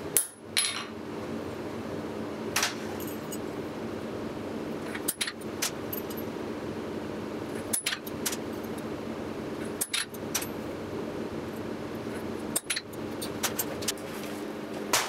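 Small steel parts clinking and tapping on a steel anvil face as they are handled, with a sharp hammer tap right at the start and scattered light clicks after it, over a steady low hum.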